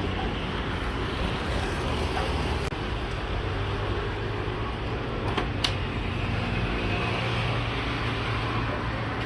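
Steady roadside traffic noise with a low engine hum. A couple of sharp clicks come about five and a half seconds in.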